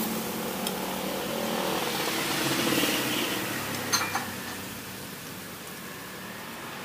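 Roadside traffic: a passing vehicle's engine swells and fades over the first few seconds, with one short sharp click about four seconds in.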